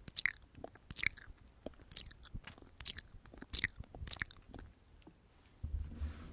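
Close-miked ASMR mouth sounds: about six sharp wet lip smacks and mouth clicks, roughly one a second, with softer clicks between them. A low bump comes near the end.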